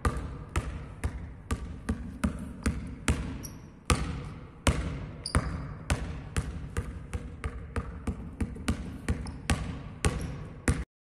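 A basketball dribbled on a sports-hall floor, switching between the left and right hand, with sharp bounces about two to three a second and a short ring after each. The bouncing cuts off suddenly near the end.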